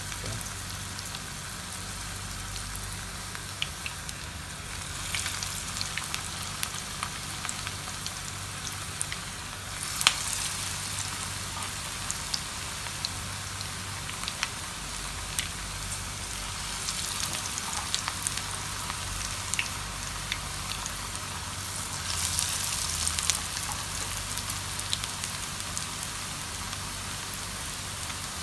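Onion and gram-flour batter fritters deep-frying in hot oil in a pan: a steady sizzle with scattered pops and crackles, swelling louder several times.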